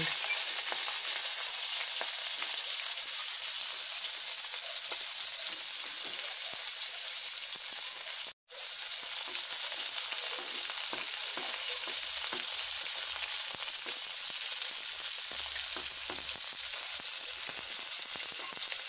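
Chopped garlic sizzling in hot oil in a steel wok, a steady frying hiss, with a flat spatula stirring and scraping through it now and then. The sound breaks off for an instant about eight seconds in.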